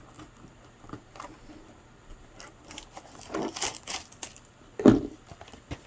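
Handling and opening a cardboard trading-card box: scattered rustles, scrapes and taps, with one sharp thud about five seconds in.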